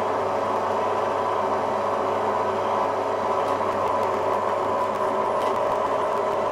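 Axminster MCB115SHD metal-cutting bandsaw running under power, its motor and blade drive giving a steady, even hum with a mechanical whine.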